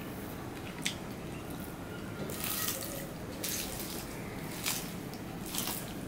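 Eating sounds of a hand mixing rice with curry on a steel plate, with wet, squishy mouth sounds: a few sharp smacks and short stretches of hiss.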